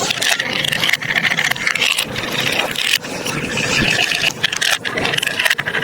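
Marbles rolling and clattering along a plastic building-block marble run, a steady rolling rumble full of small clicks.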